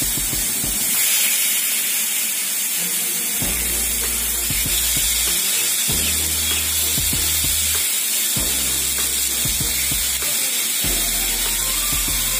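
Marinated seer fish steaks sizzling in oil on a hot flat griddle as more slices are laid down. Background music with a low bass note that changes every few seconds plays over it.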